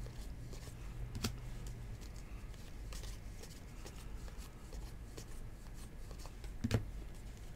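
Baseball trading cards being flipped through by hand, one by one from pile to pile: a run of light card clicks and rustles, with two louder clicks about a second in and near the end.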